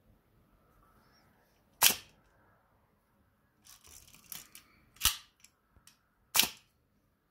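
Ihagee Exakta 35 mm SLR shutter and mirror being fired three times: three sharp clicks, about two, five and six and a half seconds in. Quieter handling clicks and rattles come between the second and third.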